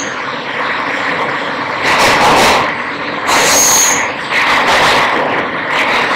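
R160 subway car running between stations, heard from inside the car: a steady rumbling ride noise with two louder rushing swells about two and three and a half seconds in, and a short, thin, high squeal during the second swell.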